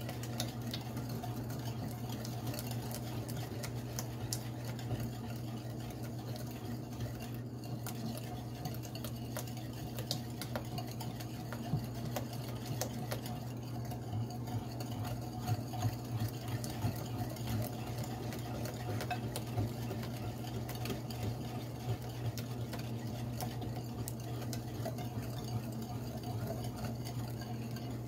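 Wire whisk beating eggs in a glass bowl: a quick, continuous clatter of many small clicks as the whisk strikes the glass, over a steady low hum.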